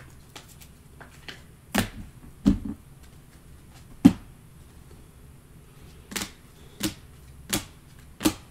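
Trading cards and their plastic holders being handled and set down on a tabletop: about seven sharp taps at uneven intervals, the loudest a little after four seconds in.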